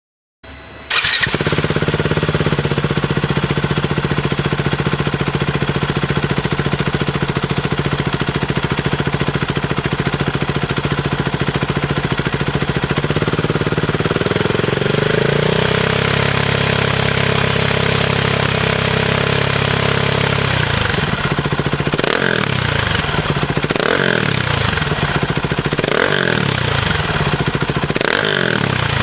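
Husqvarna 701 Svartpilen/Vitpilen's single-cylinder engine through an Arrow Pro Race full exhaust, starting up and settling into an idle. The idle rises slightly about halfway, and near the end there are several short throttle blips, each revving up and dropping back, about every two seconds.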